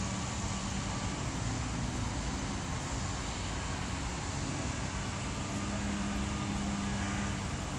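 Steady road-traffic noise: a constant hum of passing vehicles, with a low engine drone that grows stronger about five seconds in.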